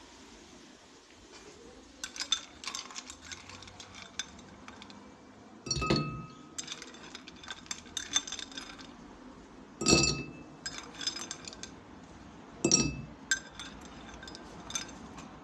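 Things dropped into a tall drinking glass, clinking against it in quick clusters, with three heavier knocks that ring the glass briefly, about six, ten and thirteen seconds in.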